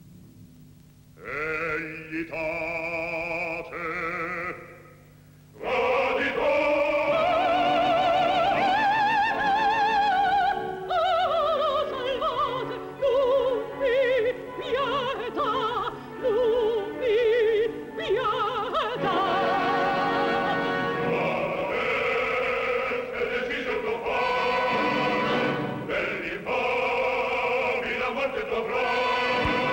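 Operatic mezzo-soprano singing full-voiced with a wide vibrato over orchestra. A short high phrase about a second in breaks off briefly, then a long, loud sung passage follows.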